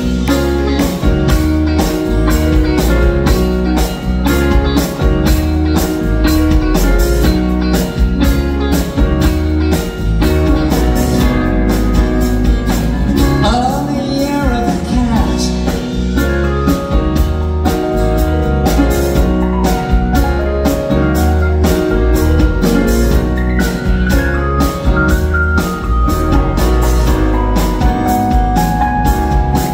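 Live rock band playing an instrumental passage with a steady drum beat, bass, keyboard and guitars; a saxophone is being played near the end.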